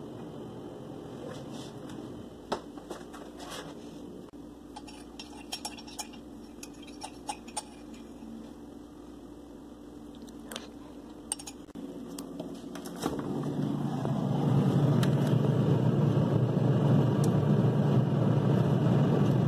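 A metal spoon clinking now and then against a ceramic cup. About two thirds of the way in, a steady motor hum starts and grows louder, then holds steady.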